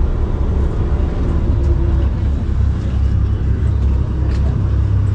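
Boat engine running steadily under way, a loud low drone with wind and water noise over it.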